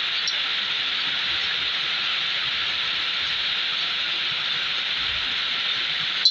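Steady hiss of rain falling, with one sharp click near the end.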